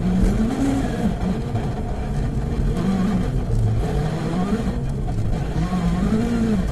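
WRC rally car engine heard from inside the cockpit, its revs rising and falling over and over as the throttle is worked through corners, over a dense steady rumble.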